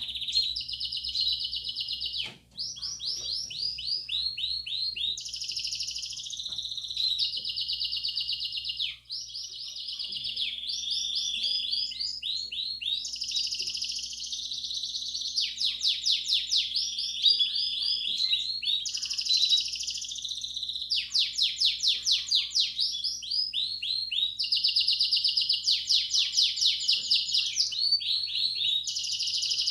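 Belgian canary singing 'campainha' song: a continuous run of rapid trills, each phrase of quickly repeated notes held for a second or two before switching to another pitch or rhythm, with two brief breaks about 2 and 9 seconds in. A faint steady hum sits beneath.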